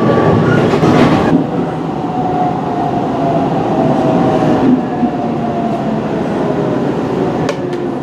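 Aichi Loop Railway 2000 series electric train running and slowing along the platform, heard from inside the carriage: running noise with a faint whine that slowly falls in pitch as the train brakes into the terminus. A sharp click comes near the end.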